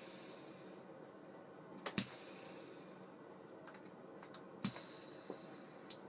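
Abu Ambassadeur 1500C baitcasting reel being handled: a few sharp metallic clicks a second or two apart, the louder ones followed by a brief high ringing that fades within about a second.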